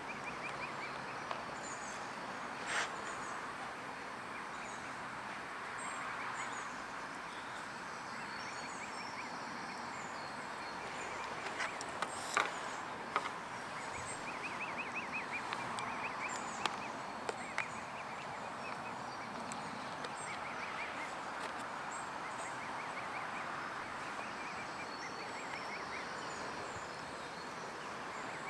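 Outdoor ambience: small birds chirping and trilling over a steady distant hum, with a few sharp knocks about twelve seconds in.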